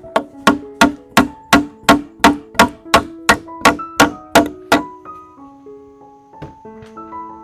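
Music with keyboard or piano notes, over which a run of about fourteen sharp, evenly spaced knocks sounds about three times a second for the first five seconds; after that the notes carry on alone.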